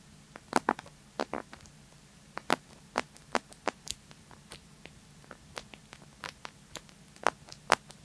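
Metal push button of a Vosteed Rook flashlight being pressed and wiggled: a series of sharp, irregular clicks, about two a second, with a scratchy sound. The button wobbles too much in its housing.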